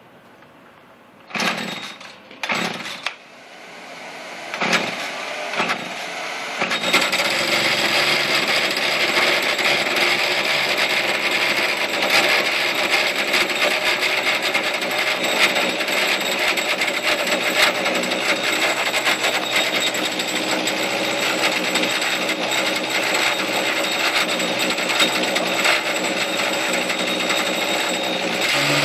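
Husqvarna chainsaw's two-stroke engine starting with a few short bursts, then catching about seven seconds in and running steadily at full throttle.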